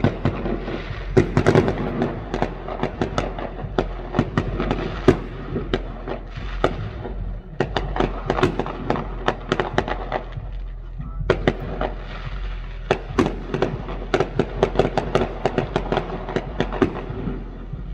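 Fireworks going off in rapid succession: a dense run of sharp bangs and crackles, with two brief lulls about seven and eleven seconds in.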